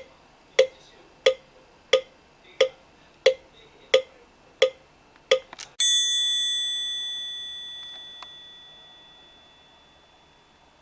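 A series of about nine evenly spaced knocks that ends in a quick flurry, then a single bell strike that rings out and fades away slowly.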